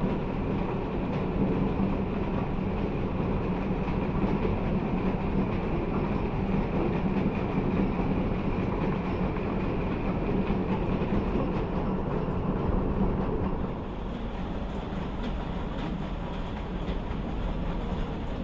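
Mustard oil expeller running steadily: a dense mechanical noise with a low hum from the machine's drive and pressing screw, dropping a little in level about fourteen seconds in.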